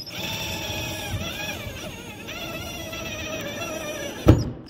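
Cordless drill-driver running, driving a self-tapping screw into a hardened baking-soda-and-super-glue patch in pine. The motor whine wavers in pitch as the screw bites, and a single sharp knock comes near the end.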